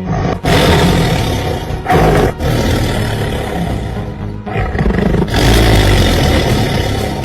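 A large animal roaring several times in long, loud roars, with music underneath.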